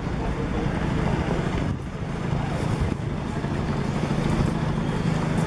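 City street traffic: a steady low rumble of car and motorbike engines.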